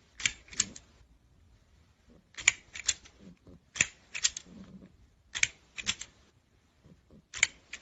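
Clusters of two or three sharp clicks or taps, recurring about every one and a half seconds, with near silence between them.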